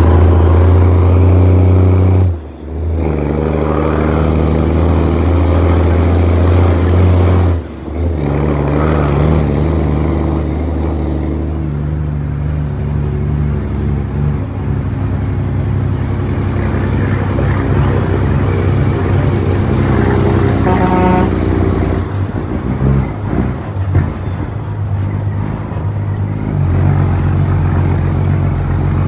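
Western Star heavy truck's diesel engine running under load. Its note drops out briefly twice, about two and a half and eight seconds in, the pattern of gear changes. After that it runs on rougher and noisier.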